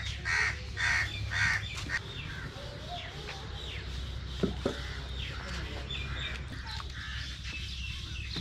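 A crow cawing repeatedly, about two harsh caws a second, for the first two seconds, followed by smaller birds chirping. A single sharp clink of a steel pot being handled comes about four and a half seconds in.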